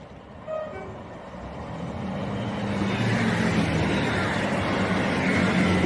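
A pair of Class 158 Sprinter diesel multiple units coming through the station. The diesel engine note and the rumble of the wheels on the rails build up over the first three seconds and then stay loud.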